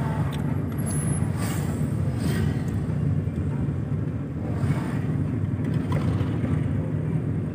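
Steady low rumble of a vehicle driving along a road, engine and tyre noise, with traffic passing.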